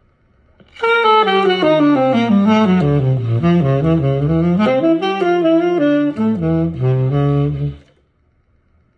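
Selmer Varitone tenor saxophone played through its Varitone amplifier. A connected run of notes lasting about seven seconds works down stepwise into the low register, climbs briefly midway, drops low again and stops short near the end.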